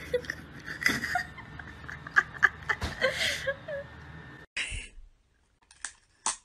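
A person laughing and snickering, with short sharp clicks mixed in; it cuts off about four and a half seconds in, and near the end a few sharp drum-like hits begin.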